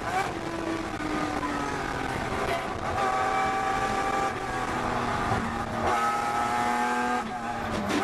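Datsun 240Z race car's straight-six engine heard from inside the cabin, working through a corner. Its note sags slowly and then jumps back up a few times, about three seconds and six seconds in.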